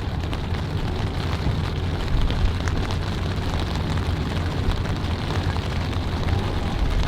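Boat engine running steadily with a constant low hum under a loud, even rushing noise, with a few faint clicks.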